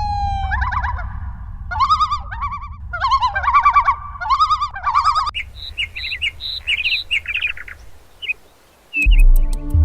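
Bird calls: a run of wavering, trilled calls, then shorter, higher chirps, over a steady low rumble. Music starts abruptly near the end.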